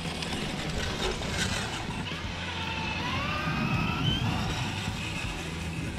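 Electric motor and gearbox of a scale RC crawler truck whining as it drives, the whine rising in pitch about halfway through.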